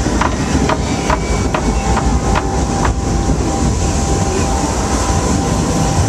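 Log flume lift-hill chain conveyor hauling the boat up the incline: a steady mechanical rumble and rattle, with sharp clanks about twice a second over the first three seconds and a faint steady whine.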